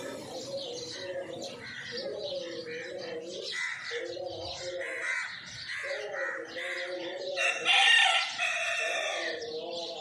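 A flock of house sparrows chirping, over lower, repeated calls from other birds that come in bouts of about a second. A louder call stands out near eight seconds in.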